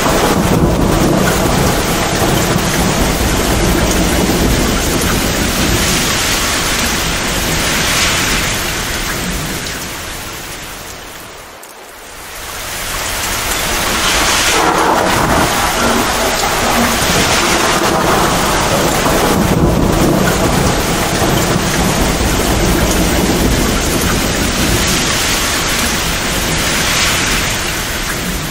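Torrential rain pouring down, with rolling thunder rumbling low underneath. The storm sound fades down briefly about twelve seconds in, then swells back to full strength.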